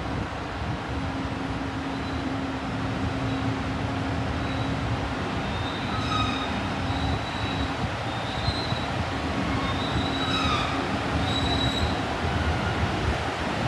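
Train rolling slowly by on the rails with a steady low hum, growing gradually louder. Its wheels squeal on and off at several high pitches, mostly in the second half.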